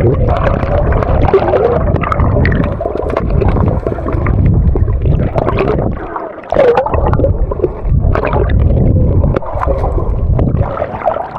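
Mountain river water gurgling close to the microphone, with a heavy low rumble. It drops away briefly about six seconds in.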